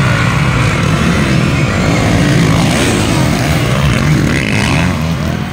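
Motocross bike engines revving hard at racing speed, their pitch rising and falling with the throttle.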